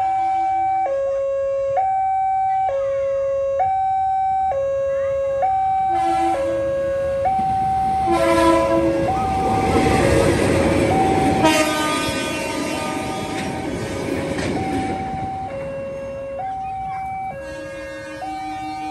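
Level crossing's electronic warning alarm, alternating steadily between a high and a low tone about once a second. A diesel locomotive hauling tank wagons passes from about six seconds in: its engine and the wheels on the rails swell loud and then fade out by about fifteen seconds. Short horn blasts sound as it approaches.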